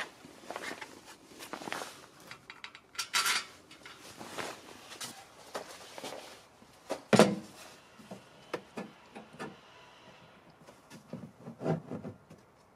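Handling of a black powder-coated steel MOLLE panel and its mounting hardware: scattered clicks, taps and rustles, with one louder knock about seven seconds in and a short run of taps near the end.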